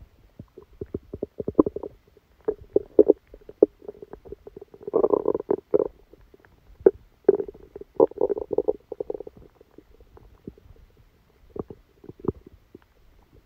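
A person's stomach growling during a stomachache after a meal: a run of short pops and wet gurgles, with two longer gurgling stretches in the middle, thinning to a few isolated pops near the end.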